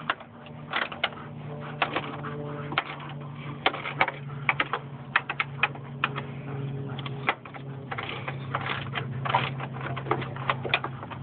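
Irregular clicks and knocks of hands working plastic parts and wiring behind a car headlight while fitting an HID headlight kit's wiring, with a steady low hum underneath.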